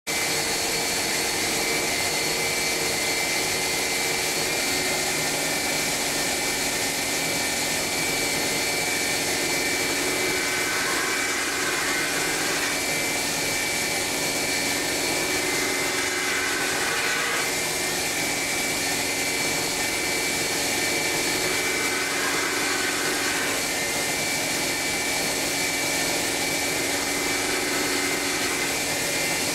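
Glass-edge belt grinding machine running steadily, a constant mechanical noise with a steady high whine. Three times the sound changes for a second or two as an extra higher band comes and goes.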